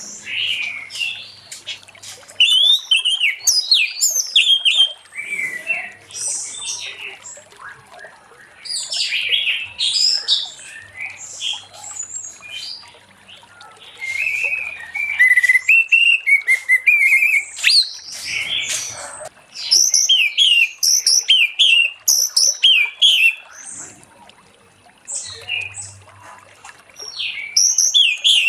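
Orange-headed thrush singing in full song: a long run of quick, varied high whistles and chattering phrases, broken by short pauses.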